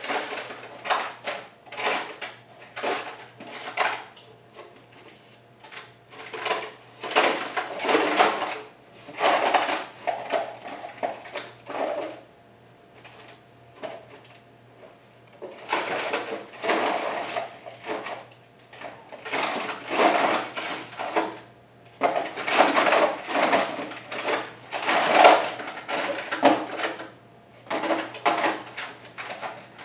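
Rummaging through metal hand tools: irregular bursts of clattering and clinking, with two short pauses, while hunting for a 10 mm socket.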